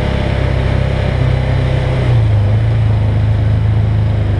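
Side-by-side UTV engine running at low, steady revs while crawling along a muddy trail, heard from the vehicle itself; the drone steps up slightly in pitch and loudness about two seconds in.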